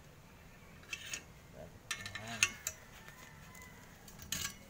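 Short sharp metallic clinks and taps as a steel chain sprocket and its hub bearing are handled: two about a second in, a cluster around two seconds in that holds the loudest knock, and two more near the end.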